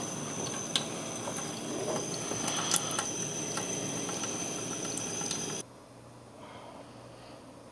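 Kitchen tap running steadily into a sink, with splashing and a few sharp clicks and knocks as a puppy is washed under it. It cuts off suddenly about five and a half seconds in, leaving quiet room tone with a faint low hum.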